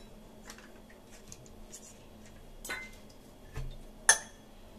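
Light clicks and taps of kitchen utensils and containers being handled on a counter: a spoon, a glass bowl and small steel bowls, with one sharper click about four seconds in.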